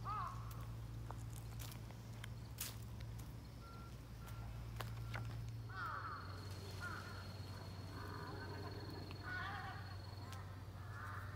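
Birds calling in short repeated series, once near the start and again several times from about six seconds in, over a steady low hum.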